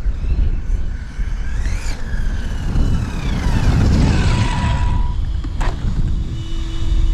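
Brushless electric motor and drivetrain of a 6S 1/8-scale off-road RC car whining at full speed on a run of about 60 mph. The pitch rises steeply as it accelerates, then falls away as the car passes and slows. Heavy wind rumbles on the microphone throughout, and there is a sharp click near the end.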